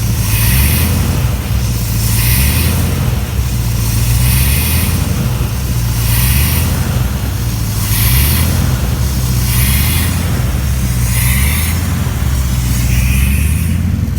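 1987 Chevy Silverado K10's 350 small-block V8 surging at idle: the engine speed rises and falls on its own about every two seconds, with a hiss swelling at each rise. This is a rough, hunting idle whose cause the owner does not know.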